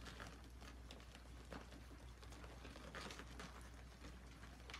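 Faint soft rustling and small clicking sounds from ten-day-old German Shorthaired Pointer puppies nursing and shuffling against their mother, over a low steady hum.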